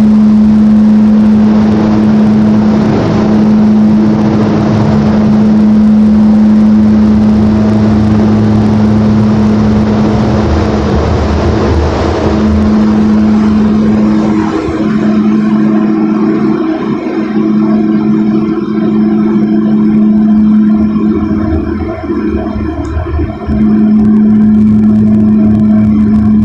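Steady loud machine hum, with a strong rushing air hiss over roughly the first twelve seconds that then stops.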